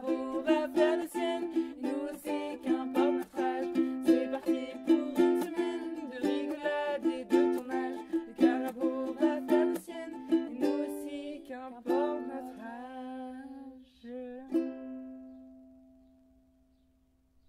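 A strummed acoustic string instrument playing chords in a steady rhythm. About twelve seconds in it slows to a few last strums, then ends on a final chord that rings and fades away.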